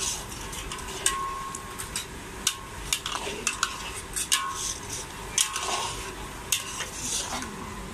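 A metal spatula and ladle scrape and clink against a large metal wok as thin noodles and tofu are stirred in a wet sauce. The strokes come irregularly, some with a short metallic ring.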